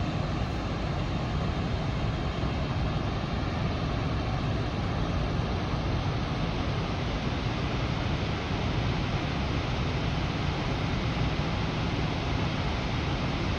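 Tahquamenon Upper Falls, a large waterfall, pouring with a steady, even rush of water that does not let up.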